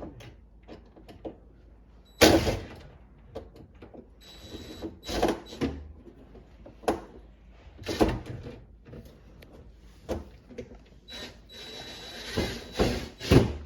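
Irregular knocks, clatter and scraping as dishwasher parts are handled and refitted, with several sharp bumps a second or more apart.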